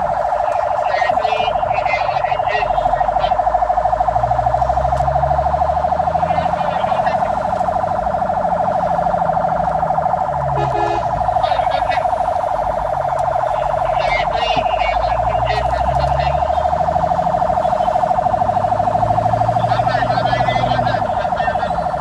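Fire engine's siren heard from inside the cab, holding a steady pitch with a fast pulse, over the truck's engine droning low and rising and falling several times as it drives.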